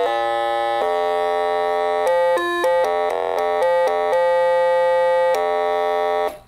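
OKAY Synth, a small DIY analog synthesizer kit, playing a simple melody one note at a time in a bright, buzzy tone. A few notes go by quickly and others are held for about a second. It stops abruptly near the end.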